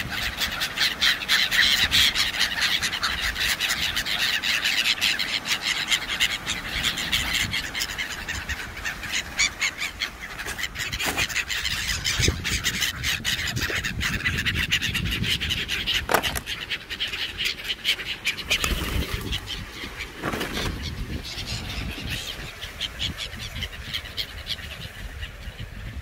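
A flock of pigeons and gulls flapping their wings close by, a dense patter of wingbeats that thins out near the end, over surf and wind rumble on the microphone.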